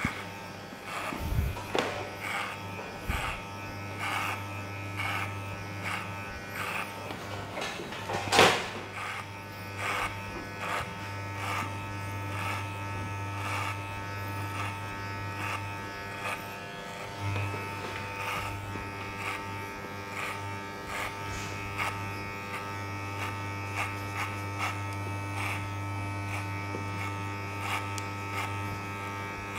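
Electric hair clipper with a number 2 guard buzzing steadily as it cuts the sides of the head, with short scratchy strokes through the hair. A single sharp knock comes about eight seconds in.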